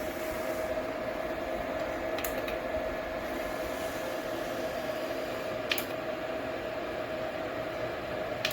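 Small PTC ceramic space heater's fan running steadily, a whirring noise with a steady hum, with a few light clicks.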